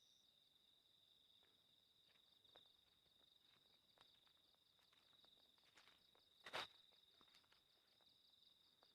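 Faint, steady high trilling of crickets in the night forest, with a few soft clicks and one brief louder crackle about six and a half seconds in.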